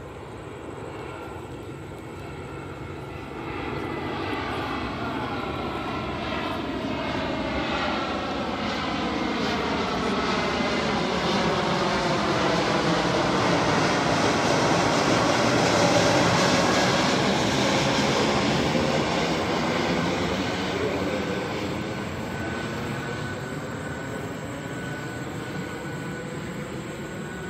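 Airbus A321neo with Pratt & Whitney PW1100G geared turbofans on final approach, flying over low. The jet noise swells to its loudest a little past halfway as the airliner passes overhead, then fades as it moves away, and its engine whine drops in pitch after it passes.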